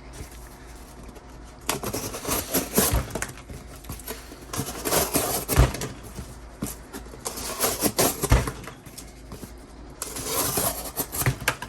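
Leatherman Surge multi-tool knife blade slicing through cardboard in four long strokes, each a rasping cut. The first three end in a low thump.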